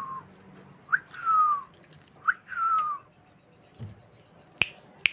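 A clear whistled call, a short rising note followed by a longer falling slur, repeated three times. Near the end there is a soft thump and then two sharp clicks.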